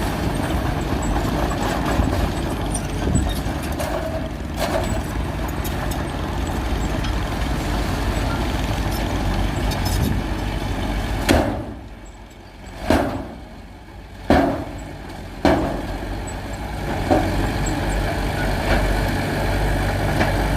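Heavy diesel machinery engine running steadily. In the middle stretch it drops away several times, each time cutting back in suddenly.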